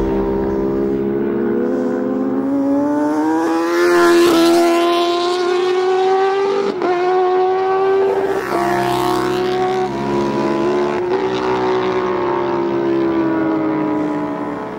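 Racing motorcycle engine running at high revs. Its pitch climbs over the first few seconds, then holds with a few brief breaks, and falls away near the end as the sound fades out.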